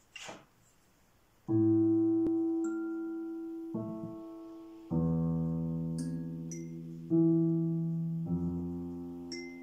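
Digital piano playing five slow chords, each left to ring and fade before the next. A few short, high kalimba plinks sound over them. The first chord comes in about a second and a half in, after a brief rustle.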